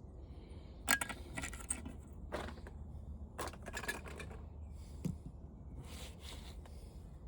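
Small metal and plastic floor-fan parts clinking and clicking as they are handled and dropped, in a handful of scattered sharp clicks over a low steady hum.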